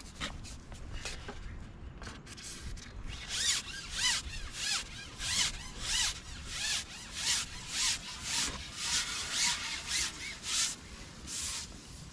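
A carbon fishing pole being shipped out hand over hand, its sections rubbing and squeaking as they slide through the hands. The rubbing starts about three seconds in and comes in regular strokes, roughly one every half second or so.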